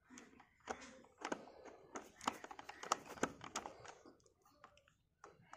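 Small screwdriver turning a screw into a plastic toy truck's chassis: a quick run of light clicks and scrapes of metal tip on plastic, thinning out about four seconds in.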